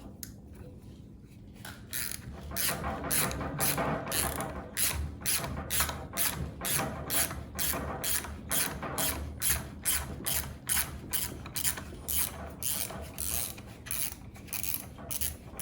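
Milwaukee 2-in-1 lineman's ratcheting box wrench clicking as it backs a fastener out: a steady run of ratchet clicks, about three a second, starting about two seconds in. The mechanism has large gears, so it clicks coarsely rather than smoothly.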